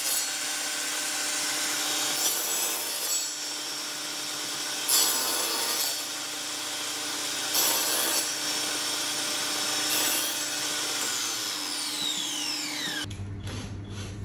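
Table saw running and cutting through wooden boards, with several louder rasping passes every few seconds. Near the end a falling whine, then the saw sound cuts off abruptly, leaving a low hum.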